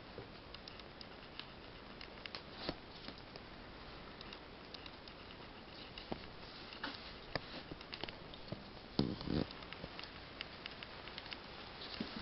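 Faint scattered clicks and rustles of hands working a skinned weasel pelt on a wooden stretcher board, with a couple of louder knocks about nine seconds in.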